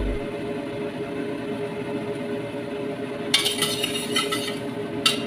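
Metal spatula and plate clinking against a stainless steel wok: a rattle of clinks lasting about a second, starting about three seconds in, and a single clink near the end, over a steady hiss.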